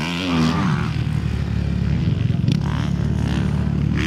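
Kawasaki motocross bike engine dropping in revs as it goes into a rutted corner, then running on at low revs. A couple of short scraping noises come as the bike goes down in the rut.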